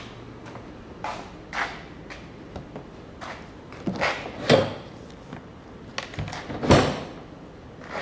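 A string of clicks, knocks and clunks, like parts or a lid being handled and shut, with two louder thuds, one about four and a half seconds in and one near seven seconds.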